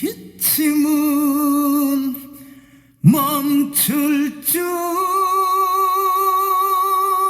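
Singing voice holding long notes with vibrato and no words. There is a brief pause about two seconds in, two short notes, and then a final note held for nearly three seconds.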